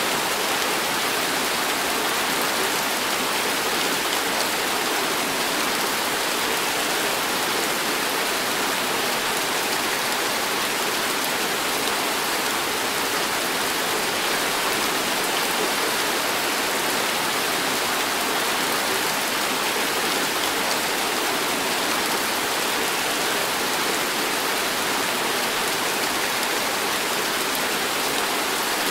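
Heavy tropical rain pouring steadily, an even hiss that does not let up.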